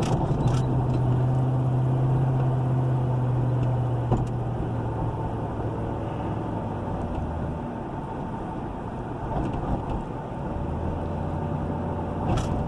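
Car running while driving, a steady low engine hum that drops slightly in pitch about four seconds in, with a brief sharp click about four seconds in and another near the end.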